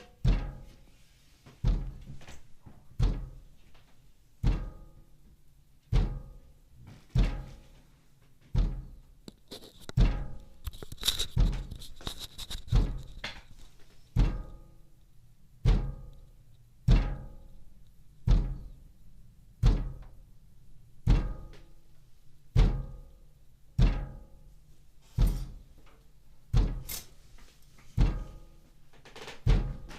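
Evenly spaced heavy knocks on a window, about one every second and a half, each a dull thud with a short ring. From about 10 to 13 seconds in, light rattling and a faint high whine join the knocks.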